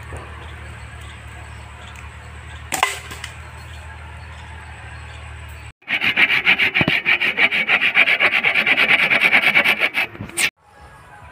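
Hand saw cutting through a green bamboo pole in rapid, even back-and-forth strokes, starting about halfway through and stopping shortly before the end. Before the sawing there is only a steady low hum and one sharp click.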